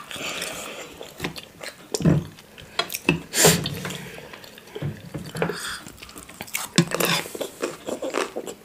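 Close-miked eating sounds: irregular wet chewing and mouth clicks, with chopsticks and cutlery clicking against plates.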